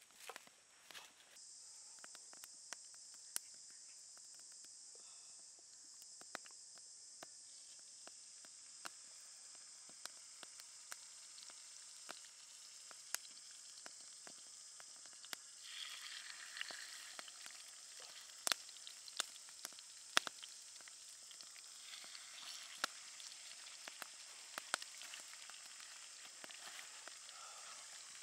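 Salmon pieces frying in hot oil in a small square pan: a steady high sizzle that starts about a second in, with scattered sharp pops, getting louder about halfway through as more fish goes into the oil.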